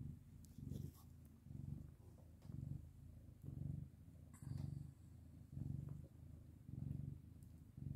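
A domestic cat purring steadily, the low rumble swelling and easing about once a second with each breath in and out.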